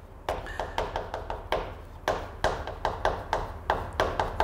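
Quick, irregular taps and knocks of writing on a hard surface, about three to four strikes a second.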